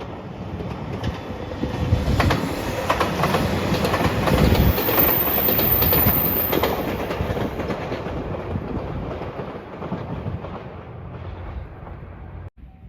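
JR Shikoku 2700 series diesel limited express train passing at speed, its wheels clacking over rail joints. The sound builds to its loudest about five seconds in, fades away, and cuts off suddenly near the end.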